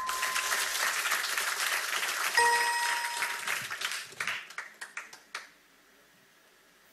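Studio audience applauding, with a bright electronic game-show chime about two and a half seconds in as the letter tile on the puzzle board is revealed. The clapping thins to a few scattered claps and dies away about a second and a half before the end.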